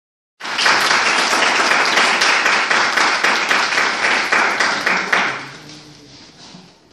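Audience applauding, with one pair of hands clapping close by; the applause starts about half a second in and dies away after about five seconds.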